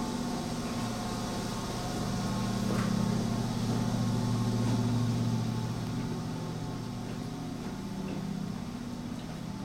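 Steady low hum from a stopped 701 series electric train's on-board equipment, loudest in the middle and fading toward the end.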